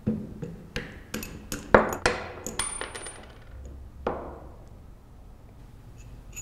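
Wooden mallet tapping a steel seal retainer tool set in a Kimray glycol pump's pilot piston hole: about eight quick, ringing metal knocks over the first two and a half seconds, then one more ringing knock about four seconds in. The taps drive out the pilot piston bearings.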